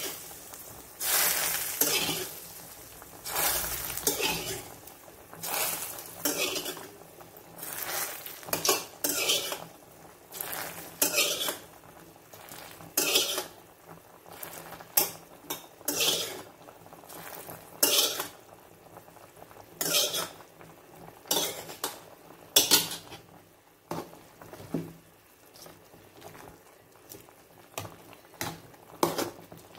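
A metal spoon stirring a curry in a pot, scraping and clinking against the pan in strokes about a second apart, louder in the first half and softer towards the end.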